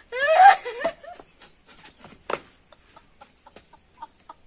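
A woman's loud, high-pitched squeal of laughter that rises and falls in about the first second, then quieter short, breathy giggles.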